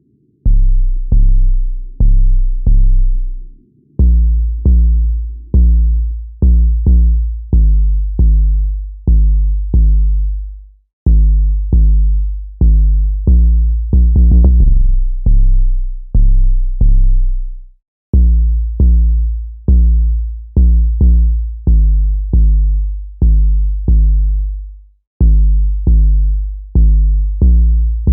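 Electronic drum-machine beat made in FL Studio Mobile: a loud repeating pattern of deep, pitched bass-drum hits at changing pitches, each fading out, with no bright cymbals or hi-hats. The pattern drops out briefly about every seven seconds.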